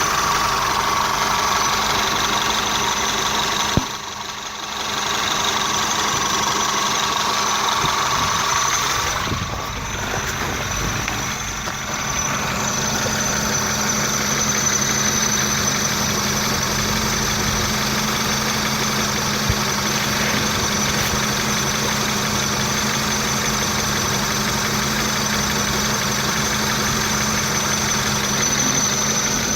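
Peugeot 508 engine idling, with a steady high-pitched whistle from a pulley in the accessory belt drive. The whistle is the sign of a failing idler or tensioner pulley; which one is not yet known.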